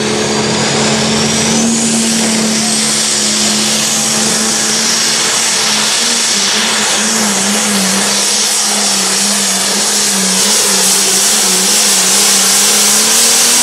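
Pro Stock pulling tractor's turbocharged diesel engine at high revs with a high turbo whistle over it. About halfway through, its note dips and wavers as it takes the load of the sled and heads down the track.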